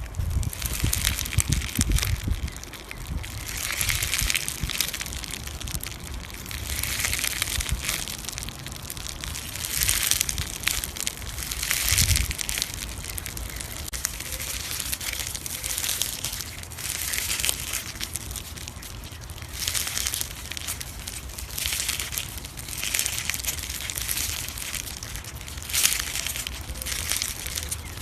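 Slime being squeezed and pressed by hand, crackling and crinkling in waves every two to three seconds.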